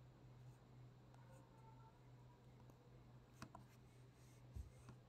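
Near silence: room tone with a steady low hum and a few faint clicks, two of them about three and a half and four and a half seconds in.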